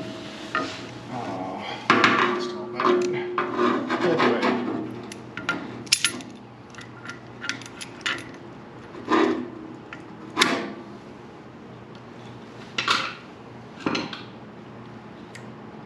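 Metal tools and parts clanking and rattling by hand: a busy run of knocks and clinks with a little ringing for the first few seconds, then single clanks every second or two.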